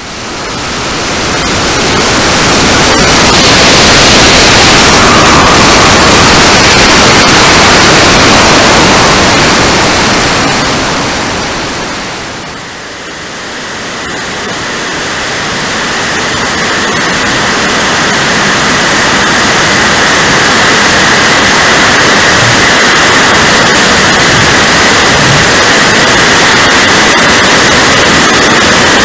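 RC model jet in flight heard from its onboard camera: loud, steady rushing of air over the microphone mixed with the turbine's roar. The sound dips briefly about halfway, then a steady high whine rides on top of the rush.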